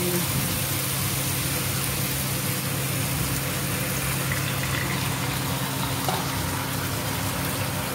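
Water poured into a frying pan of winter melon chunks, splashing over the pieces, over a steady low hum.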